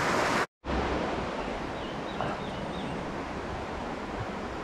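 Steady rush of river current flowing over stones, cut off by a brief dropout about half a second in, with a few faint high chirps about two seconds in.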